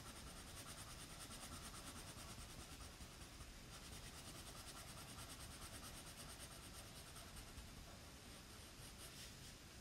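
Faint scratching of a wax crayon on paper, rubbed back and forth in short little strokes, a few a second, to colour in a drawing.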